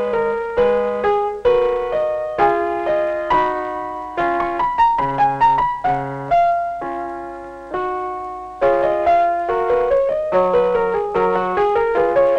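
Piano music: a melody of struck notes, several a second over lower chords, that pauses on one fading note about eight seconds in before picking up again.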